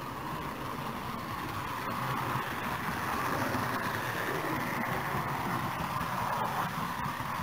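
Model train running on its track, heard close up from a camera riding on the train: a steady rolling hum of wheels on rails and motor, rising a little midway, with a few faint clicks over the rail joints.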